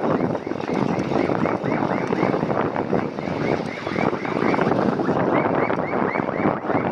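Wind rushing over the microphone of a moving bicycle, mixed with passing road traffic, rising and falling in level. A faint chirp repeats about four times a second throughout.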